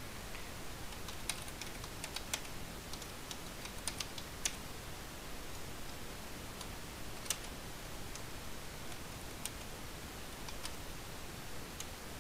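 Typing on a computer keyboard: faint, irregular keystroke clicks over a steady low hiss.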